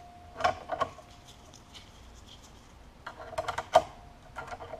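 Small sharp metal clicks and taps of a steel hook tool and punch against the hammer, trigger springs and steel receiver of an AK rifle, as the spring tension on the hammer is relieved. A few isolated clicks come first, then a quick cluster about three seconds in.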